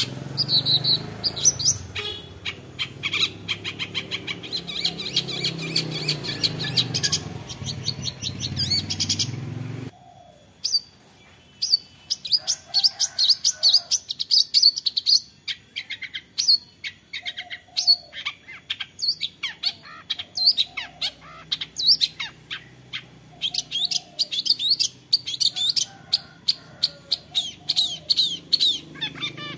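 Long-tailed shrike (cendet) calling its repeated sharp 'toet toet' notes: a fast run of notes over a low steady hum for about ten seconds, then single sharp notes two or three a second.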